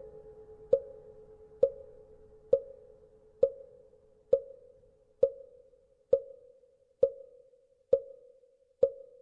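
Buddhist wooden fish (mõ) knocked at a slow, even pace, about one stroke a second, each a hollow wooden knock with a brief ringing tail. A faint steady hum underneath fades away over the first half.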